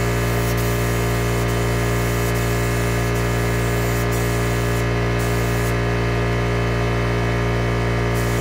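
Compressed-air paint spray gun hissing as it sprays orange pearl basecoat onto a car body, over a steady hum. The hiss drops away briefly about five seconds in, then again for the last couple of seconds, as the trigger is let off.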